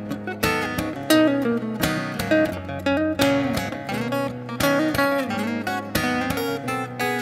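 Acoustic guitar played alone: a rhythmic instrumental passage of strummed chords and picked notes, with no singing.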